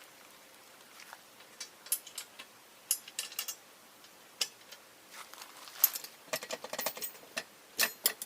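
Irregular light clicks and clinks of the pontoon boat's metal frame parts and pins being handled and fitted together, busier in the second half, with a sharper knock about six seconds in.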